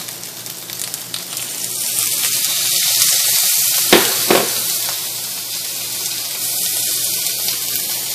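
Cubed pork sizzling in hot olive oil in a frying pan, the sizzle swelling about two seconds in. Two sharp knocks about four seconds in.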